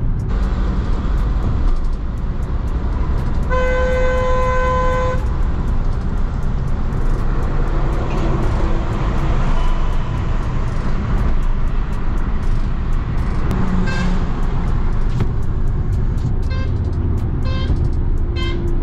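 Steady road and engine noise inside the cabin of a Hyundai i20 petrol hatchback cruising on a highway. A car horn sounds once for nearly two seconds about four seconds in, and a run of quick ticks, about two a second, comes near the end.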